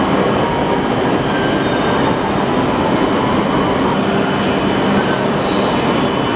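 Electric limited express train at a station platform, its steady running hum with several held tones over a rushing noise as it begins to pull out.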